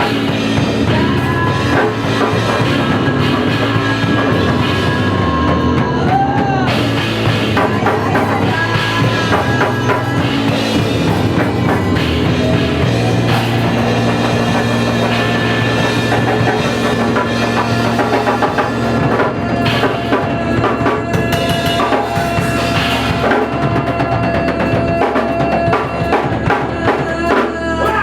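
Punk rock played on drum kit and electric bass: a dense, loud, steady drum beat under a sustained bass line.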